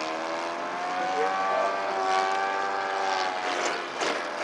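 Radio-controlled aerobatic model plane's motor and propeller running steadily overhead, the pitch rising a little and then easing back down during a manoeuvre.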